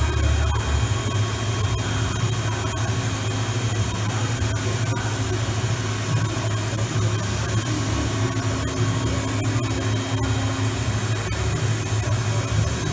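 OKK VM-5 II CNC vertical machining center running: a steady low hum with a hiss over it. A faint higher whine holds for a few seconds past the middle.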